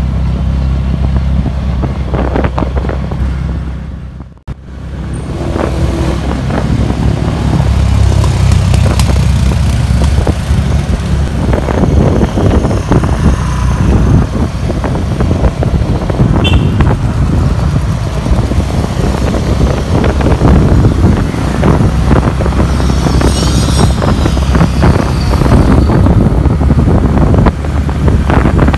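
Motorcycle engine running steadily while riding through town traffic, with wind buffeting the microphone. The sound drops out briefly about four seconds in, and a short high beep comes about midway.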